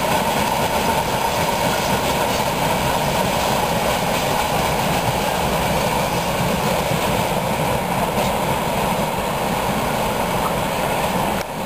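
Steady rolling noise of a long freight train of tank wagons running away along the track, with no single clear rhythm, easing slightly near the end.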